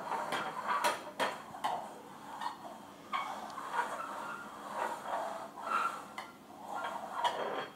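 Small cups from a toy magic set being picked up, set down and shuffled on a tabletop during a cups-and-balls routine. They make a dozen or so light clicks and knocks, some with a brief ring.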